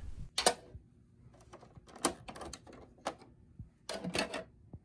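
Plastic clicks and rattles as the snap-fit side covers of a Kyocera EcoSys M2540 printer are unclipped and handled. There is a sharp click about half a second in, a cluster of clicks around two seconds, another at three, and a longer rattle around four seconds.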